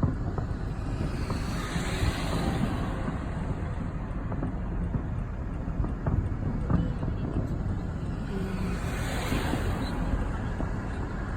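Wind buffeting the microphone over a steady low outdoor rumble, with a few faint sharp pops.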